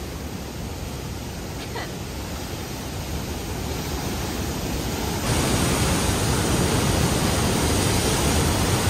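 Steady rushing of Bridal Veil Falls' water crashing onto the walkway deck close by, a dense white-water noise that turns louder and fuller about five seconds in.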